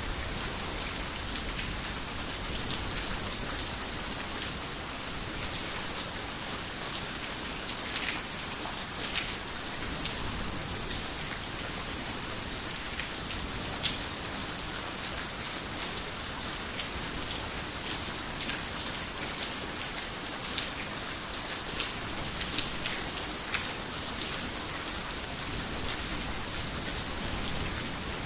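Rain falling steadily, with scattered sharper drop hits standing out now and then.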